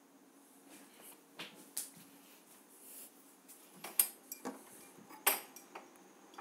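A few scattered sharp clicks and light knocks, the loudest about four seconds in, over a faint steady hum.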